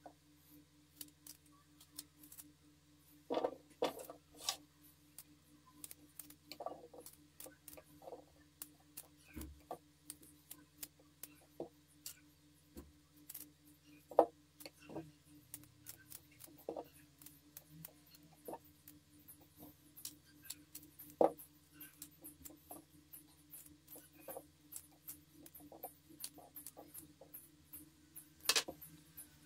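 Small paring knife slicing fresh strawberries held in the hand, making irregular small clicks and taps as the pieces drop into a clear bowl, with a few louder taps. A steady low hum runs underneath.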